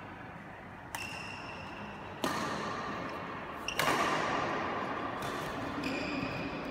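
Badminton rackets striking a shuttlecock in a rally: about four sharp hits, each with a short ringing ping, echoing in the hall. The loudest hit comes near the middle.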